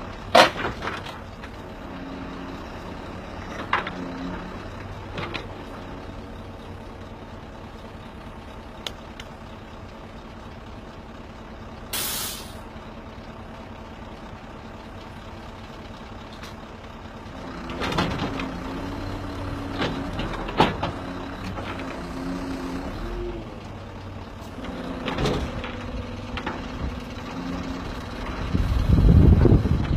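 Timber truck's loader crane working logs with the engine running: a hum that rises and falls as the crane moves, with several sharp knocks of logs and grapple. A short hiss of air about twelve seconds in, and wind rumbling on the microphone near the end.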